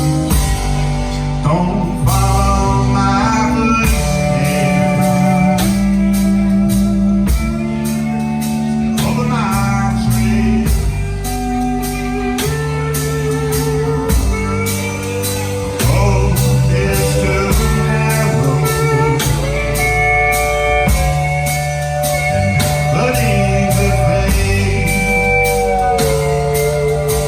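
Band music: a blues-rock song with guitar and singing over a steady beat.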